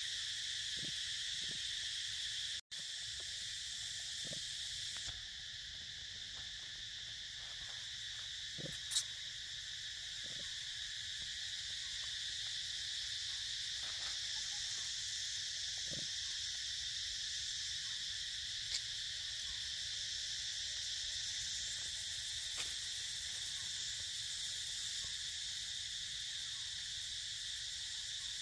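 Steady high-pitched drone of forest insects, unbroken except for a momentary dropout about three seconds in. A few faint soft knocks and one sharp tick near nine seconds sit underneath it.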